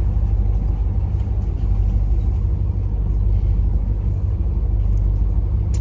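The yacht's twin inboard diesel engines idling with a steady low hum. A single sharp click comes near the end.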